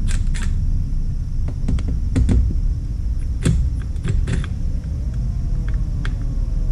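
A small cordless drill-driver and its bit tap and click against a car's metal exhaust finisher in a series of sharp clicks. About five seconds in, the drill's motor runs slowly with a soft wavering whine as a stainless self-tapping screw is driven in gently, not too tight. A steady low rumble runs underneath.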